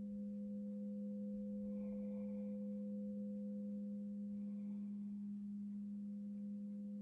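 Zeal chakra crystal singing bowl sounding a steady, pure low hum, with a faint higher shimmer that swells about every three seconds.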